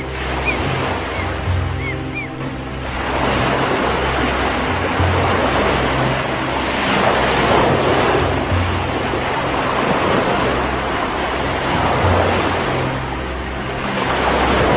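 Ocean surf washing in swells that come in about three seconds in, rising and falling, over soft background music with a low pulsing bass note.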